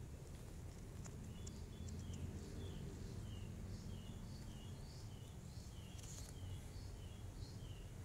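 A small bird chirping over and over: short, high chirps that fall in pitch, about two a second, starting a second or so in, over a low steady rumble.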